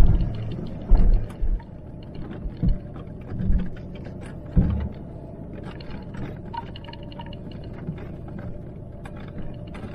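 Range Rover L322's 3.6-litre TDV8 diesel crawling slowly over a rough dirt track, heard from inside the cabin: a low steady rumble with several knocks and thumps in the first few seconds as the wheels drop over ruts, and faint creaks and rattles throughout.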